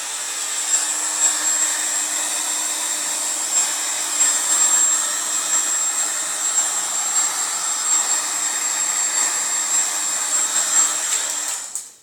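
Handheld hair dryer blowing steadily, a steady whine over the rush of air, switched on just before and cutting off near the end. It is played over wet poured paint to bring air bubbles out of the surface.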